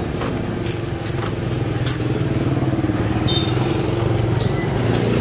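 A vehicle engine running steadily with a low hum, slowly getting louder, with a few faint light clicks over it.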